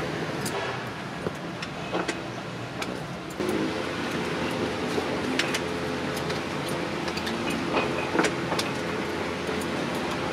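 Scattered metallic clinks and knocks from a hand-worked iron mould being handled while casting lead battery grid plates, over a steady mechanical hum.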